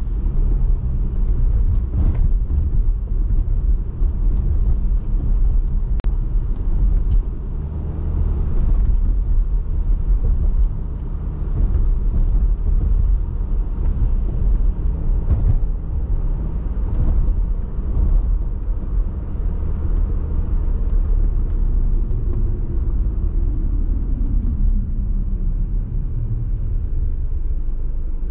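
A car driving on a highway: a steady low rumble of engine and tyre noise, with a few light clicks or bumps. Near the end a tone falls in pitch.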